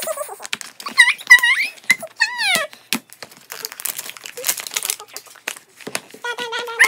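Wrapping on a surprise toy egg crinkling and tearing as it is opened, with many small crackles throughout. A few short high-pitched squeaks come about one to two and a half seconds in.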